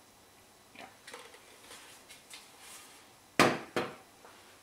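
Faint scraping as dough slides out of a Thermomix TM5's stainless steel mixing bowl, then two sharp metallic clunks in quick succession, about three and a half seconds in, as the emptied bowl is set down on the worktop.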